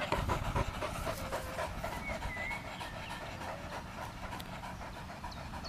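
Whippet panting hard with its mouth open, in quick, even breaths, out of breath after a long run.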